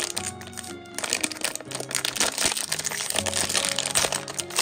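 Foil blind-box bag crinkling and crackling as hands pull it open, over background music with held notes.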